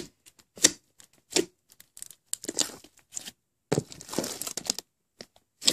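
A large batch of purple slime being squeezed and kneaded by hand in a plastic tub, giving irregular short squishes with a longer run of squishing a little under four seconds in.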